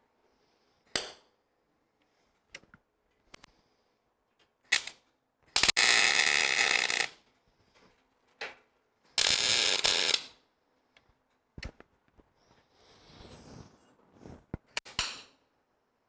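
Two tack welds on a steel bumper's winch mounting plate, each a steady noisy burst lasting just over a second, about six and nine seconds in, with scattered sharp clicks and knocks of metal being handled around them.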